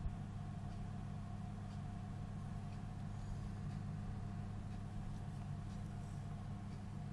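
Steady low electrical hum of a home-made egg incubator running, with a thin higher tone held over it and a single short click at the very start.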